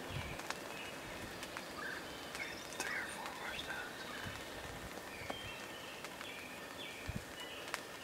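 Wild turkey tom gobbling once, a quick rattling run of falling notes about two seconds in.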